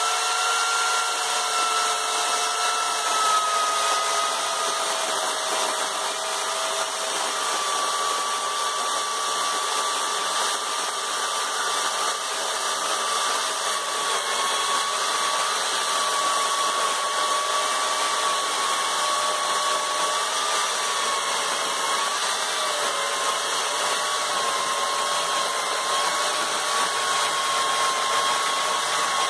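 Corded electric chainsaw starting up and cutting down through a log: a steady motor whine that sinks a little in pitch over the first several seconds as the chain takes the load, then holds, wavering slightly.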